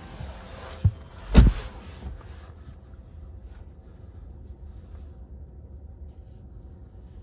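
Two dull thumps about half a second apart, the second louder, then a low steady hum inside a car's cabin.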